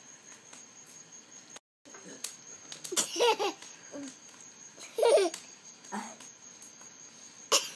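Young child laughing in short bursts, the loudest about three and five seconds in.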